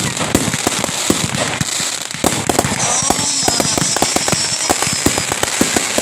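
Fireworks going off in a rapid, continuous run of pops and crackles. A high whistle glides slowly down in pitch from about three seconds in to about five.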